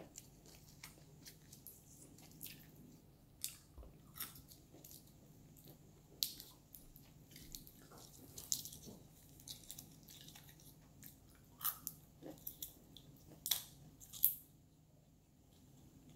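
Walnut shell crackling and snapping as cracked walnuts are picked apart by hand, in irregular sharp clicks, mixed with close-up chewing of walnut meat.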